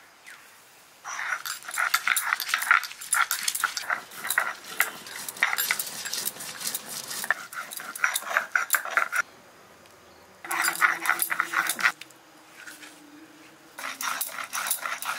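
Dried red chillies being ground on a shil-nora, a flat stone slab worked with a hand-held stone grinder: rapid, rough scraping strokes of stone on stone. The strokes come in three spells, separated by two short pauses.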